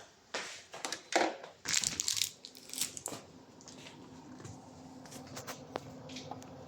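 Crinkling, rustling handling noise in a quick irregular series over the first three seconds, then a faint steady hum with a few light ticks.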